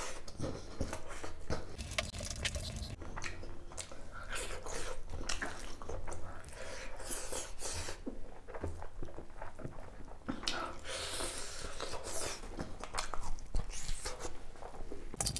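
Close-miked person eating spicy duck curry: chewing and biting, with irregular mouth clicks and an occasional crunch.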